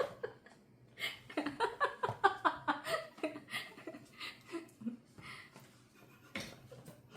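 A woman laughing: a run of short giggles that die away over a few seconds.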